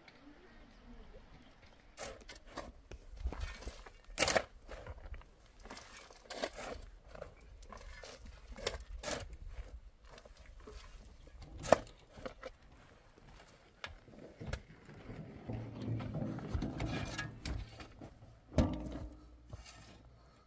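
Irregular knocks and thumps, one sharp knock louder than the rest about twelve seconds in and another near the end.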